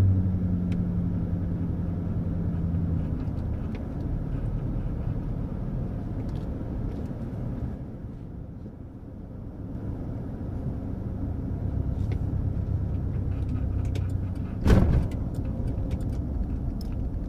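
Road and engine noise inside a moving vehicle: a steady low rumble, with an engine hum that fades about three seconds in and a brief lull about halfway. A single sharp thump sounds near the end.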